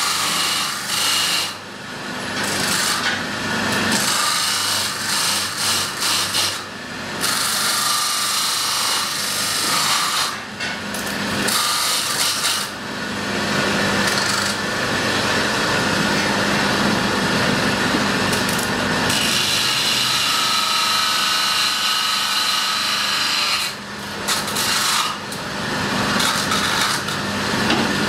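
Power saw machine cutting slits into a forged steel blank: a steady, loud metal-cutting noise over a motor hum, breaking off briefly several times.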